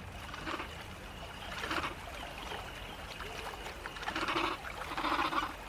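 Faint trickling, running-water ambience, steady with a few soft swells.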